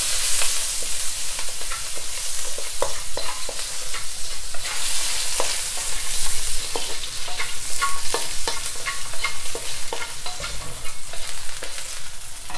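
Spring onion, ginger slices and a garlic clove sizzling in hot oil in a wok, with a wooden spatula scraping and clicking against the pan as they are stirred.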